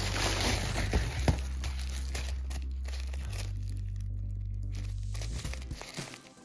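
Plastic packaging crinkling and tearing as it is handled and pulled open, busiest in the first two and a half seconds and sparser after.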